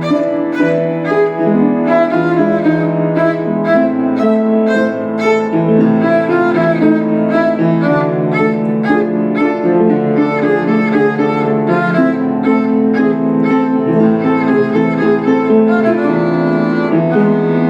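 Violin playing an Argentine tango melody with piano accompaniment.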